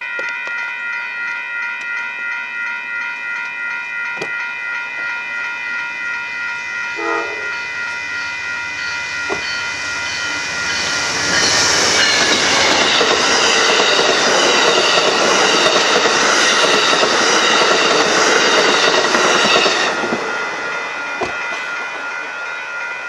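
A railroad crossing bell rings steadily as an Amtrak passenger train of Superliner double-deck cars passes. From about halfway in, the wheels and cars make a loud rushing clatter for roughly ten seconds, then drop away to the bell alone.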